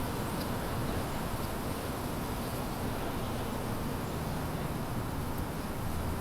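Steady outdoor city-campus background noise with a low hum underneath, and a few faint, short bird chirps.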